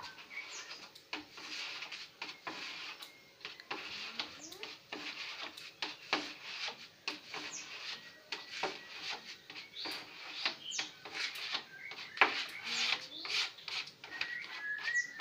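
A hand-held pad rubbing over a wooden tabletop in repeated back-and-forth strokes, each a short scratchy hiss, with occasional sharp clicks.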